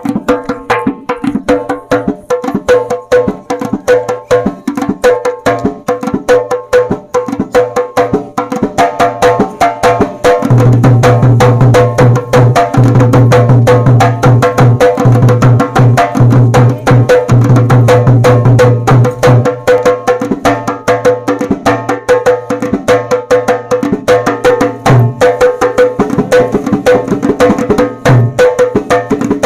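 Fast folk drumming, a dense run of rapid strokes keeping a steady beat, with a steady higher note held over it. It grows fuller with a loud low tone from about ten seconds in until about twenty seconds.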